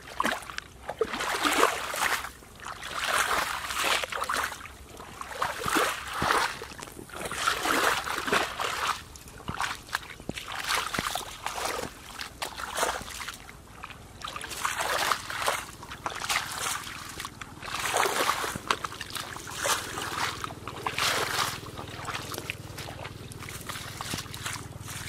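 Footsteps in rubber boots splashing and sloshing through shallow muddy water and wet straw, a step about every second.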